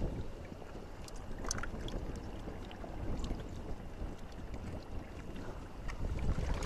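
Wind rumbling on the microphone over shallow water lapping among tide-pool rocks, with a few faint clicks.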